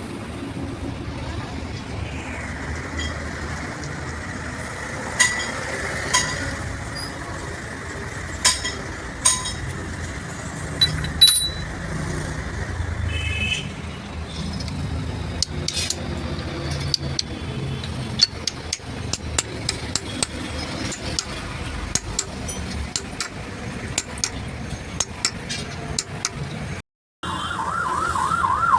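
Steel tools and gearbox parts clinking and tapping now and then during truck gearbox assembly, over steady traffic noise. A wavering siren starts near the end.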